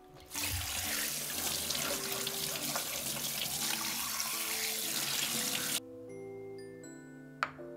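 Kitchen tap running onto a whole raw chicken being rinsed in a stainless steel sink, a steady splashing hiss that stops abruptly after about six seconds. Soft background music with sustained notes plays underneath and on after the water stops.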